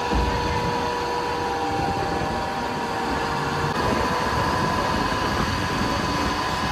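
Steady running hum of a Mumbai suburban electric local train, an even rumble with a few steady whining tones; one of the lower tones stops about halfway through.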